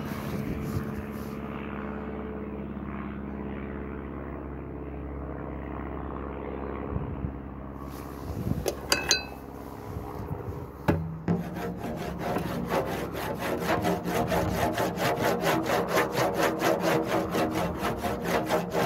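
A wooden beater is rubbed back and forth across the skin head of a large frame drum, giving a fast, even rhythm of rubbing strokes over a sustained low drum tone from about eleven seconds in. Before that there is a low steady hum and a few sharp knocks as the beater is picked up and set on the drum.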